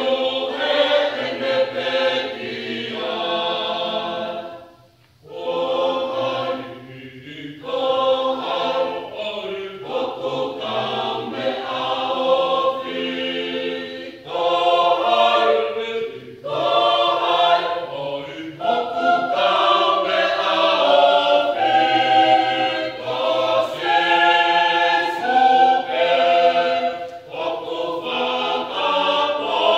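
Mixed choir of men and women singing a Tongan gospel song unaccompanied, in several parts. The singing breaks off briefly about five seconds in, then carries on.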